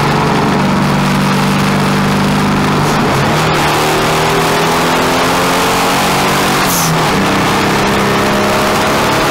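Turbocharged air-cooled VW Beetle flat-four engine pulling through the gears, heard from inside the cabin. Its pitch climbs steadily, drops at gear changes about three and seven seconds in, and climbs again, with a short hiss at the second change.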